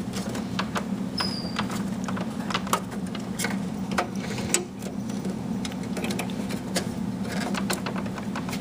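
Scattered small clicks and scrapes of a front-panel headphone connector being handled and fitted into a desktop PC case, over a steady low hum.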